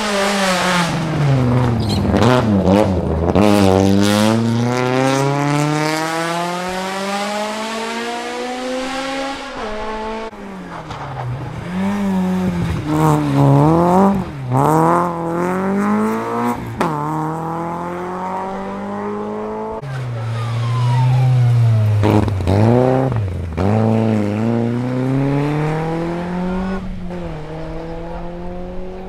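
Rally car engines at full effort on a special stage, revving up through the gears and dropping back on shifts and braking as the cars pass. The revs climb in one long pull over the first ten seconds, then rise and fall quickly several times.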